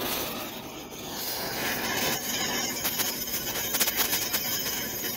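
Oxy-fuel cutting torch with a straight tip hissing as its flame heats the steel of a dump-bed hinge assembly to start a cut. It grows louder about a second and a half in, and sharp crackles and pops come in from about halfway.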